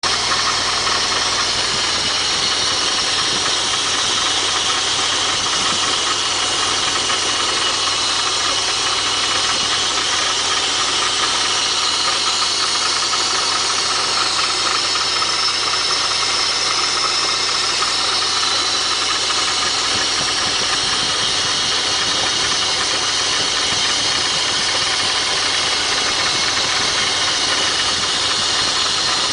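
BMW E36 320i's straight-six engine running steadily, making an unusual noise that the owner finds strange.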